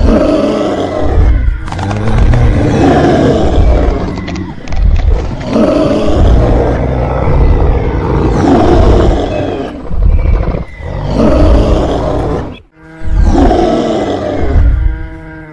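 Dinosaur roar sound effects, one loud, rough roar after another every two to three seconds, with a more pitched bellowing call near the end.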